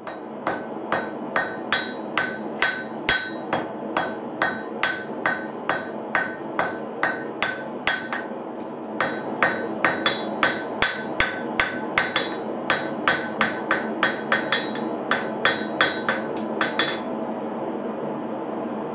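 Hand hammer blows on a red-hot steel knife blank on an anvil, about two a second, each with a bright metallic ring, drawing out the knife's tang. The blows pause briefly about halfway and stop a couple of seconds before the end, leaving a steady background hum.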